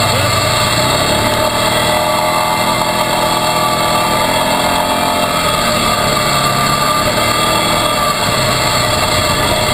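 Quad ATV engine running under way at a fairly steady throttle, its pitch rising and falling slightly, over steady rushing noise.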